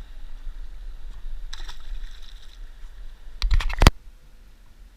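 A short scraping rustle, then a quick clatter of several sharp knocks about three and a half seconds in, over a low steady rumble.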